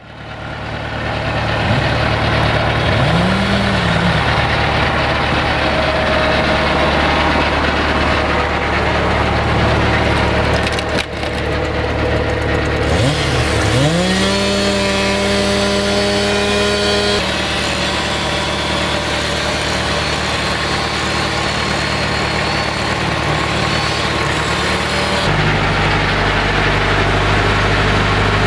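UTB U651M tractor's diesel engine running, its pitch climbing twice as it revs up and then holding, while it powers a hydraulic log splitter whose wedge cracks and splinters a log of firewood. The sound changes abruptly three times.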